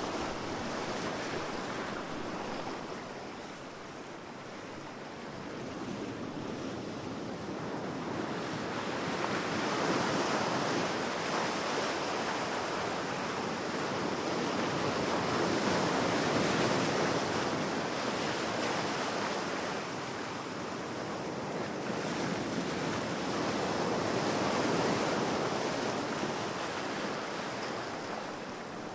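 Ocean surf: waves breaking and washing ashore in a steady rushing noise that swells and ebbs slowly, louder about a third of the way in, at the middle and near the end.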